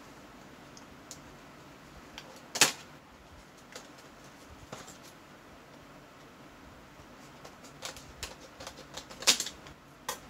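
Sharp clicks and snaps of a diecast model car's collector box being worked open by hand: one loud snap about two and a half seconds in, then a run of clicks near the end.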